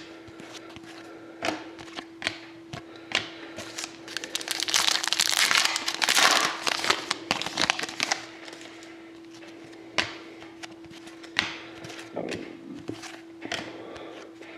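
Foil trading-card pack wrapper crinkling and being torn open, loudest in a dense stretch from about four to eight seconds in, with sharp clicks of cards being handled before and after. A steady hum runs underneath.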